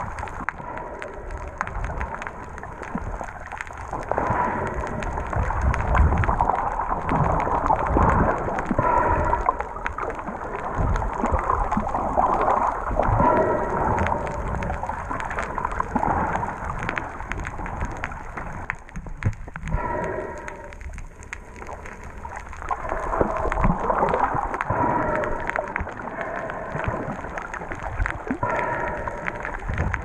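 Underwater noise heard through a submerged camera: gurgling, bubbling water with a dense crackle of small clicks, swelling and fading in waves, quietest about two-thirds of the way through.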